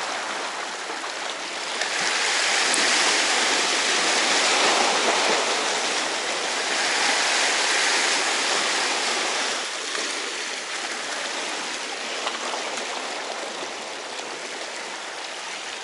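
Small sea waves washing and splashing over the shore rocks, a steady rush that swells a couple of seconds in and eases off after about ten seconds.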